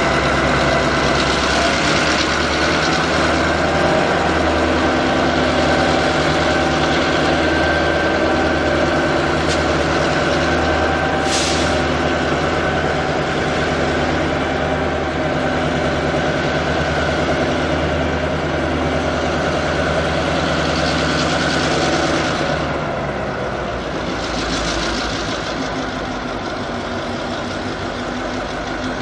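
Diesel locomotive engine running steadily close by, with a short hiss about eleven seconds in. About 22 seconds in the engine note drops and the sound gets a little quieter.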